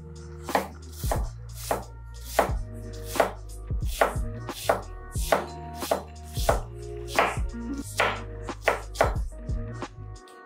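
Chef's knife dicing a yellow onion on a cutting board: sharp, uneven knocks of the blade on the board, about one to two a second.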